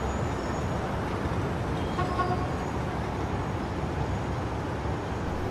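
Steady urban road traffic noise, the rumble of passing vehicles, with a faint short tone about two seconds in.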